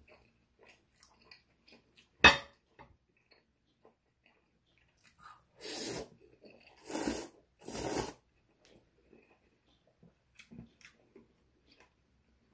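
A person slurping Korean ramen noodles in three long sucks about six to eight seconds in, between small wet chewing and mouth clicks. A single sharp click about two seconds in is the loudest sound.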